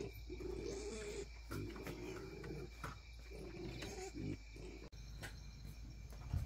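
An animal calling, a run of about five low calls, each roughly half a second to a second long.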